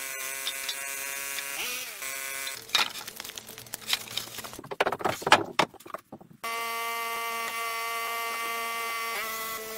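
A steady buzz from a motor-driven tool, shifting pitch briefly now and then. In the middle come a few seconds of irregular knocks and noise. After a short gap the buzz returns at a steady pitch.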